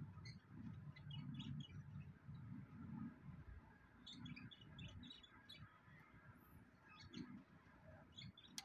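Faint birdsong: small wild birds chirping in short runs about a second in, again around four to five seconds, and near the end, over a soft low rumble that fades after the first few seconds.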